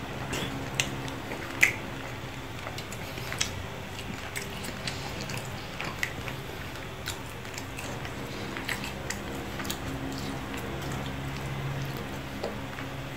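Person eating cooked lobster with their hands: wet chewing and squishing, with scattered sharp clicks as the meat is picked from the shell, the loudest about one and a half seconds in.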